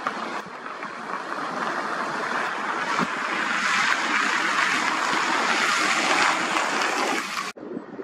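Wind and river water rushing in a steady noise that swells louder midway, then cuts off abruptly shortly before the end.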